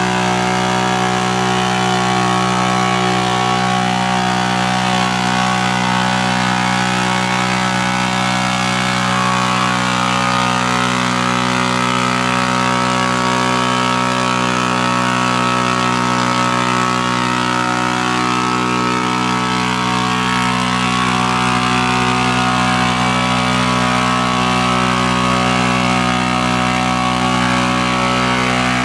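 Big-tire mud ATV's engine held at steady revs, one constant pitch, while its tires spin and churn in thick mud.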